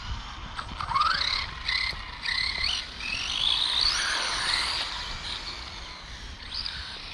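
RC car motors whining, the pitch sweeping up again and again as the cars accelerate hard and back off.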